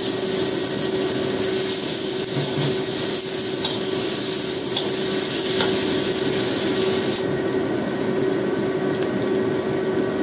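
Sliced shallots and garlic sizzling in hot oil in a wok, stirred with a metal spatula that scrapes across the pan now and then, over a steady hum.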